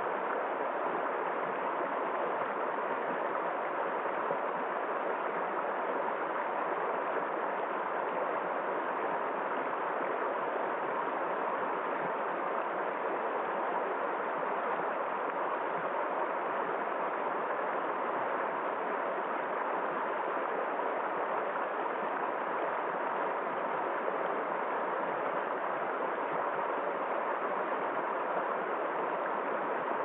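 Shallow, rocky river running in rapids over stones: a steady, even rush of water.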